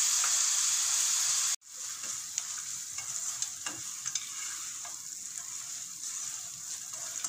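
Beetroot halwa sizzling in a nonstick pan. The hiss cuts off sharply about a second and a half in, then goes on quieter, with light scrapes and taps as a slotted spatula stirs the halwa and cashews.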